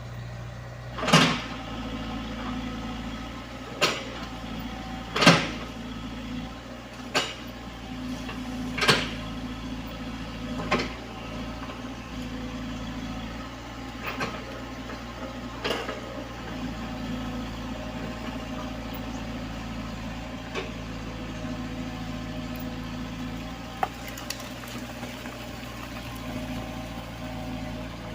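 Komatsu PC75UU mini excavator's diesel engine running steadily while it digs. Sharp knocks come every second or two in the first half, then die down to a few faint ones.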